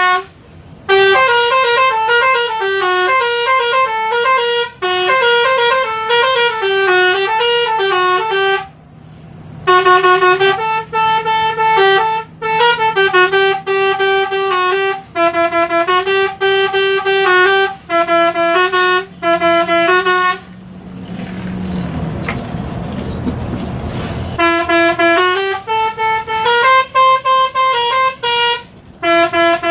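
Basuri telolet horn playing a tune, several horn trumpets sounding together in stepped chords, in phrases broken by short pauses. About two-thirds of the way through the horn stops for a few seconds of rushing hiss, then the tune starts again.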